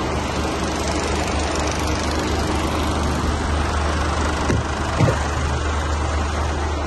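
Mercedes Actros 2545 truck's diesel engine idling: a steady low hum under a hiss, with two soft thumps close together about two-thirds of the way in.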